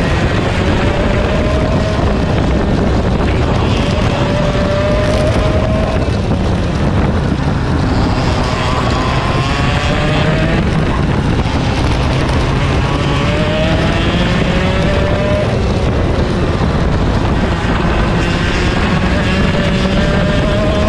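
Racing kart's 100cc two-stroke engine heard onboard at racing speed. Its pitch climbs again and again as it accelerates out of each corner, then breaks off and drops as the driver lifts for the next turn.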